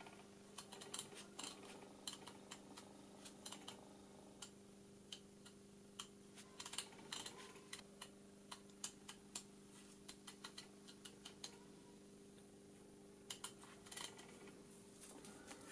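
Soft, irregular clicks as the rotary encoder shaft of a Boeing 727 EPR indicator is turned by hand to set the maximum EPR, some in quick runs, over a faint steady hum.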